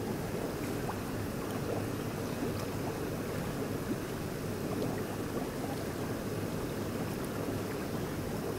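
Water running from an inlet pipe into a lobster holding tank: a steady splashing, with hands moving through the water.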